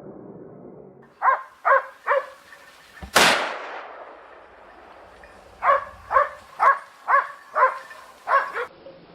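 A dog barking three times in quick succession, then a single loud gunshot with a trailing echo, then the dog barking again in a run of seven barks at about two a second.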